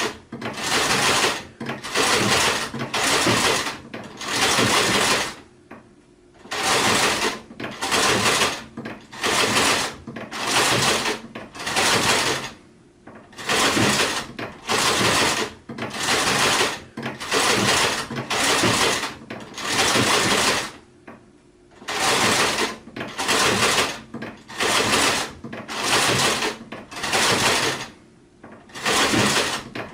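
Sewing machine stitching in short spurts, each under a second and coming about once a second, with a pause of about a second every several seconds.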